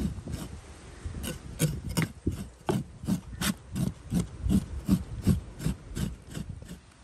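Knife blade scraping the silvery skin of a ribbon fish in quick, even strokes, about three a second, removing the fish's silver coating.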